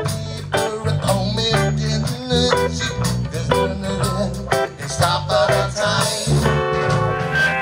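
Live rock band playing: a man singing into a microphone over electric guitar, bass and drums, with a steady beat.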